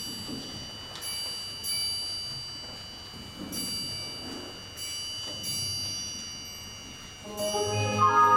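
Bells struck slowly, about half a dozen strokes, each ringing on with bright high tones. About seven seconds in, the orchestra comes in underneath.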